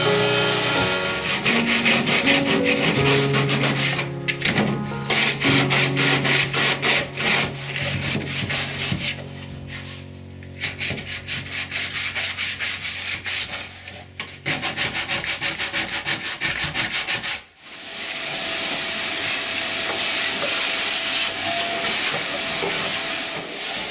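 Rapid scraping and rubbing strokes on the boat's wooden floor frames as dirt is worked loose by hand. A power tool runs steadily with a high whistle for the first second or so. A vacuum cleaner runs steadily from about three-quarters of the way in until just before the end.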